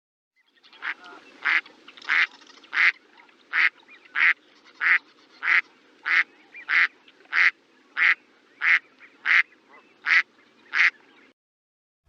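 A duck quacking, about sixteen evenly spaced quacks at roughly one and a half a second, over a faint steady background noise. The calls start about a second in and stop shortly before the end.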